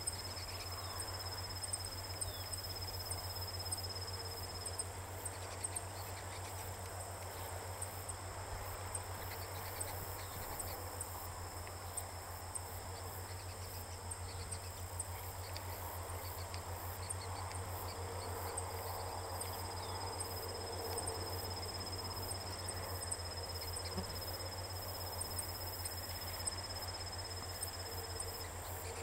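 Insect trilling steadily at one high pitch in two long stretches: the first stops about five seconds in, and the second starts about twenty seconds in and stops just before the end. A constant low hum runs underneath.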